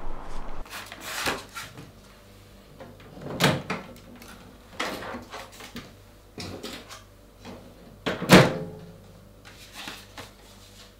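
Handling of a microwave oven door: a handful of separate clicks and knocks as the door is worked open and things inside are handled, the loudest knock about eight seconds in, over a faint low steady hum.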